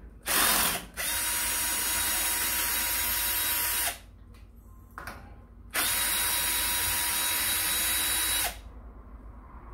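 Cordless drill-driver running, a short burst first and then two steady runs of about three seconds each with a quiet gap between, driving out the bolts of a steel plate on a milling machine column.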